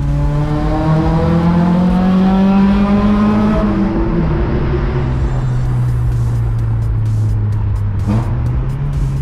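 Car engine heard from inside the cabin, rising steadily in pitch as the car accelerates in gear, dropping at a gear change a little over three seconds in, then running steadily at cruising speed. Background music with a beat comes in over it in the second half.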